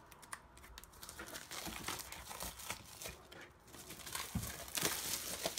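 Sheets of patterned scrapbook paper rustling and crinkling as they are handled and shuffled, with small taps and slides, louder near the end.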